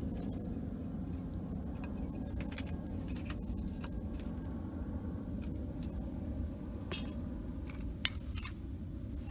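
Wood campfire crackling, with scattered sharp pops over a low steady rumble; the sharpest pop comes about eight seconds in.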